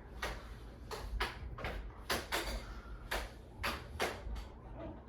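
Craftmade CXL ceiling fan running with a low steady motor hum, with sharp clicks every half second or so at uneven spacing.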